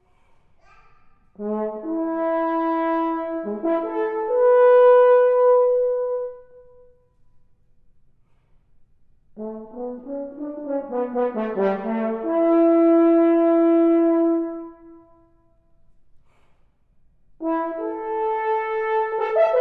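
Solo French horn, unaccompanied, playing a stately slow introduction: two phrases that each settle onto a long held note, separated by pauses of a couple of seconds, and a third phrase beginning near the end.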